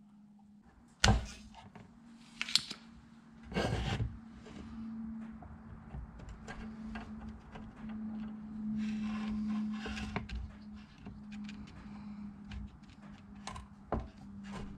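Spring-loaded solder sucker (desoldering pump) working molten solder off a relay's pins on a circuit board: a few sharp snapping clicks and short bursts of noise, with quieter rubbing and handling between them, over a faint steady hum.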